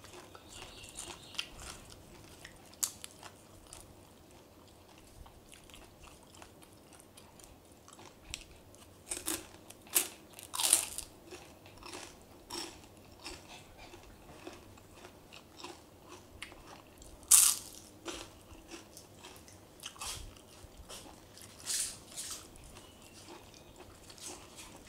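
Close-up eating: irregular crisp crunches of bites into crunchy food, with quieter chewing in between. A handful of loud crunches bunch together around the middle, and the loudest comes a little after.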